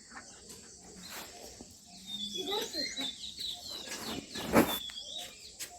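Birds chirping in short whistled calls, with one brief loud noisy burst about three-quarters of the way through.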